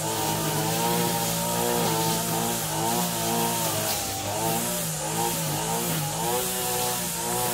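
A motor engine running continuously, its pitch wavering up and down.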